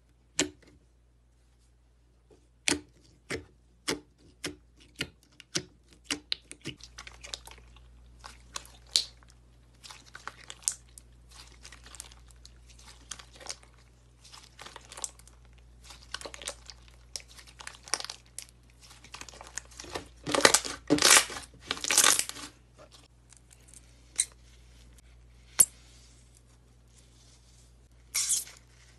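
Glossy slime being poked, stretched and squeezed by hand, making sharp clicking and popping sounds. The clicks start out separate, about two a second, then run into dense crackling, loudest in a cluster of bursts about two-thirds of the way through.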